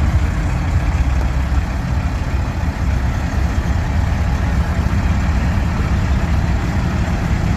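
Peterbilt semi tractor's diesel engine running with a steady, low rumble as the truck rolls slowly past.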